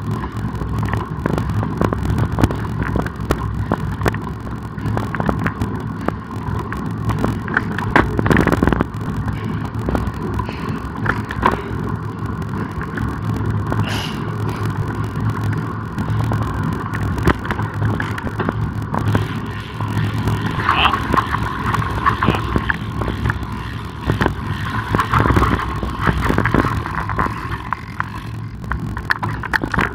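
Riding a road bicycle on a road: a steady rumble of tyres and wind on the microphone, with scattered knocks from the bike and motor traffic alongside.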